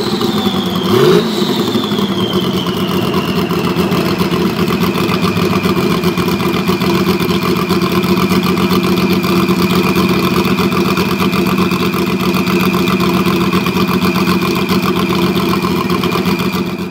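Porsche 935 Kremer's turbocharged flat-six gets a short throttle blip about a second in, then settles into a steady idle. A high turbo whistle falls in pitch over the next few seconds and then holds steady over the idle. The sound cuts off abruptly at the end.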